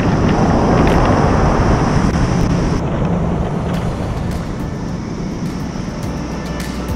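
Wind buffeting the microphone over breaking ocean surf, a steady rushing noise with a deep rumble that eases a little about halfway through.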